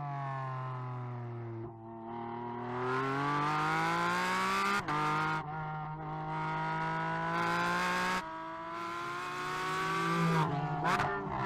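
Porsche 718 Cayman GT4 RS Clubsport's 4.0-litre flat-six race engine running hard, its pitch climbing steadily under acceleration with brief breaks at gear changes around five and eight seconds in, then quick up-and-down revs near the end.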